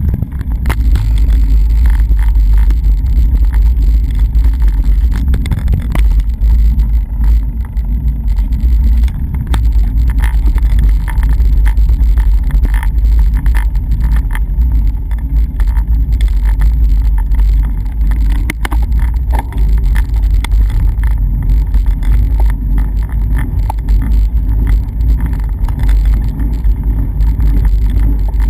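Steady, loud low wind rumble buffeting the microphone of a camera moving along a road, with scattered faint ticks and taps over it.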